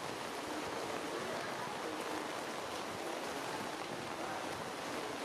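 Steady rain falling through tree foliage, an even hiss with no single drops standing out.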